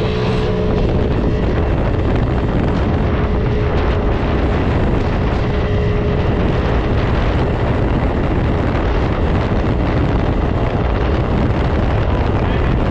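Heavy wind rush over the microphone from riding a 50cc IceBear Maddog scooter at full throttle, with the small engine droning steadily underneath.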